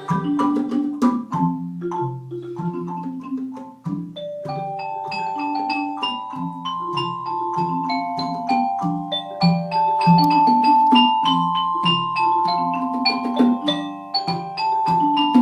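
Mallet percussion ensemble of Orff-style instruments playing a low repeating bass pattern of struck notes. From about four seconds in, higher, longer-ringing metallophone-like notes join on top.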